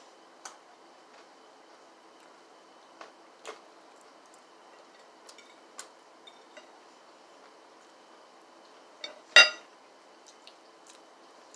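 Eating sounds: scattered faint clicks of a fork against a plate and of chewing fried chicken, with one much louder sharp knock about nine seconds in, over a faint steady hum.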